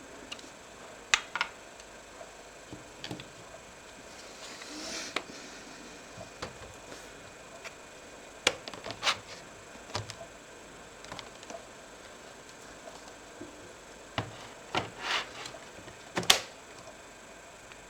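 Irregular clicks and light knocks of laptop case parts and tools being handled, a dozen or so spread out, with a short rustle about five seconds in.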